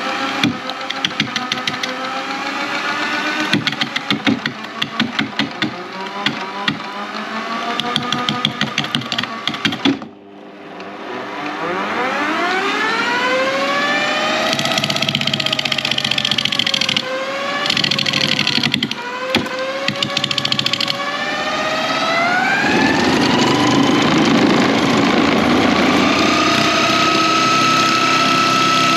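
Electric wood lathe running with a bark-covered log spinning, the carbide turning tool chattering against the bark in rapid ticks. About ten seconds in the sound drops away briefly; the motor whine then rises and falls in pitch as the speed is changed, steps up, and holds steady at a higher pitch.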